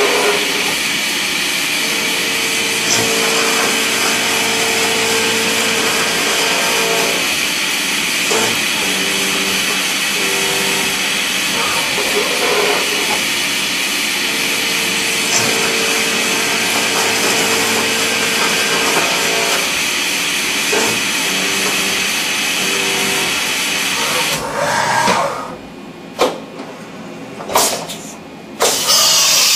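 CNC machining centre milling a brass part on a fourth-axis rotary unit: a steady hiss with the spindle and cutting sound, and a humming tone that comes in twice for several seconds during cutting passes. Near the end the hiss stops, a few sharp knocks sound as the machine moves, and the hiss starts again.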